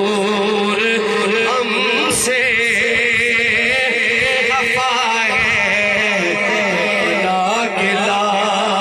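A man singing a devotional Urdu/Punjabi kalam (naat) into a microphone, holding long ornamented notes with a wavering vibrato, without words breaking through.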